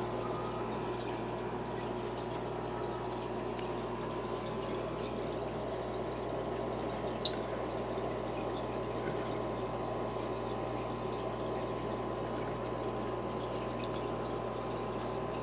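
Steady running-water bubbling of an aquarium sponge filter, with a low steady hum underneath. A single short tick about seven seconds in.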